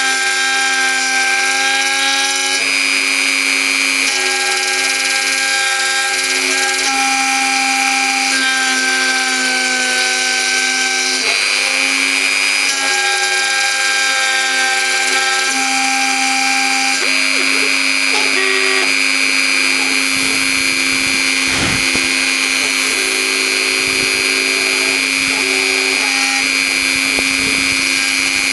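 Mini CNC router spindle cutting wood, clearing out the areas of a logo. It gives a steady high whine, with other tones that jump to a new pitch every few seconds as the machine moves.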